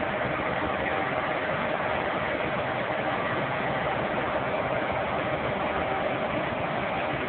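Diesel engine of a large tracked piling rig running steadily, with a steady hum over the engine noise and no hammer blows.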